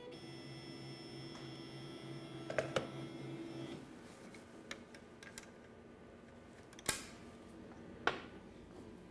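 Laguna CNC router's stepper drives whining steadily as the spindle head moves up off the Z-zero touch plate; the whine stops a little under four seconds in. Clicks and a few sharper knocks follow as the touch plate puck and its lead are handled and lifted away.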